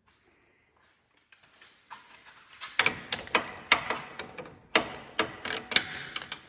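Click-type ratcheting torque wrench tightening a suspension bolt: a run of irregular ratchet clicks and knocks that start faintly about a second and a half in and grow louder from about three seconds in.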